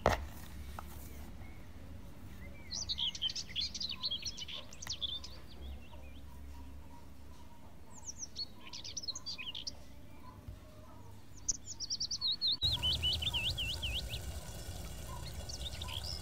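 Small birds chirping in several bursts of quick, high, twittering phrases, with a sharp click at the very start.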